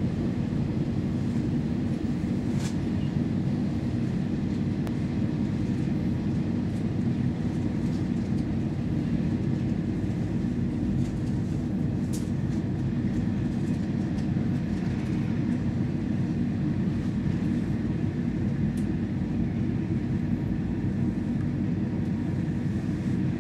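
Train running on the rails, heard from inside the passenger car: a steady low rumble with a few faint clicks.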